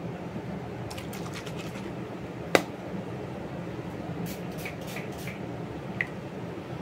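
Steady low room hum with scattered small clicks in two short clusters and one sharper, louder click about two and a half seconds in.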